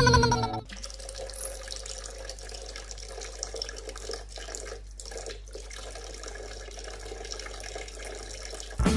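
Steady running water, like a tap left running, after music cuts off at the start; music comes back in loudly just before the end.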